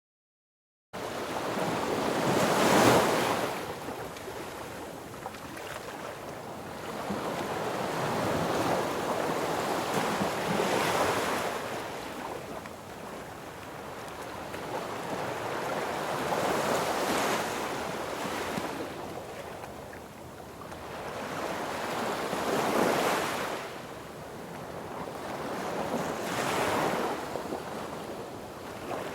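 Sea waves breaking on a beach, each wave swelling and washing back, about one every five or six seconds. The sound cuts in abruptly about a second in.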